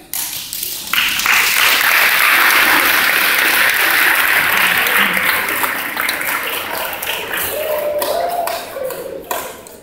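Audience applauding, breaking out in full about a second in and dying away near the end.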